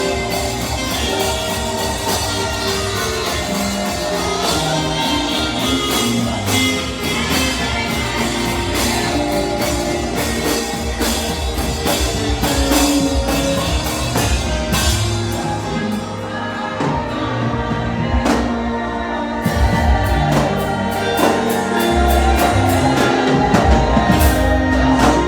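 Live gospel worship music: singing over a full band with drums.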